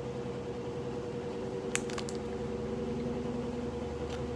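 Steady low mechanical hum in the room, with a quick cluster of short clicks about two seconds in and one more near the end, as a plastic candy wrapper and lollipop are handled.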